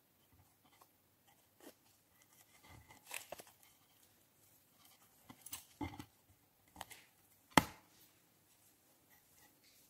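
Faint, sparse crackles and small pops from air bubbles bursting in clear glitter slime as it settles in a glass dish, with a few sharper clicks, the loudest about three-quarters of the way through.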